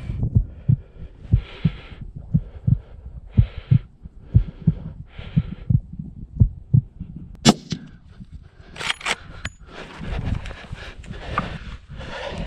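A scoped hunting rifle fires once, a sharp crack about seven and a half seconds in, followed by a few sharp metallic clicks about a second and a half later. Before the shot, soft low thumps about twice a second come with heavy breaths from the prone shooter.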